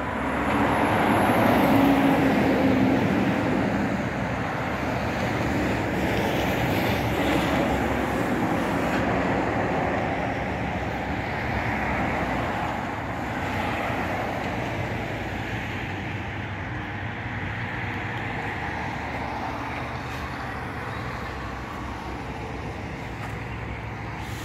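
Highway traffic passing: a continuous rumble of cars and trucks, loudest about two seconds in and then gradually easing.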